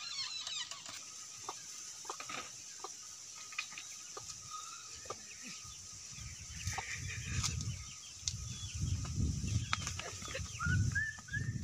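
Chickens clucking, with a few quick bird chirps at the start and a low rumbling noise through the second half.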